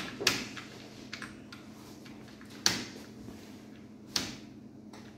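Three sharp knocks about a second and a half apart, with lighter clicks and ticks between them, from handling and keying at an office desk, over a faint low hum.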